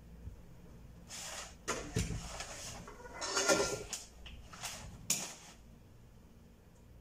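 A series of short rustling and scraping sounds with a soft knock, grouped between about one and five and a half seconds in.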